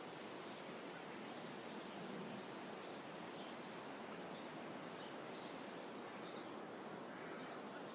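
Faint, steady outdoor ambience by calm water, with distant small birds calling: a thin, high whistled note near the start and again about five seconds in, and a few short chirps in between.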